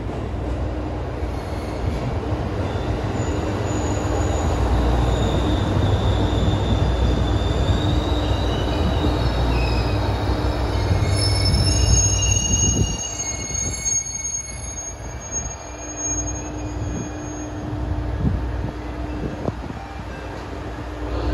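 Echigo Tokimeki Railway ET122 diesel railcar pulling into the platform and braking, its engine and wheels rumbling under high, wavering squeals from the wheels and brakes. The noise builds, then falls away sharply about halfway through as the train comes to a stop, leaving a quieter steady hum.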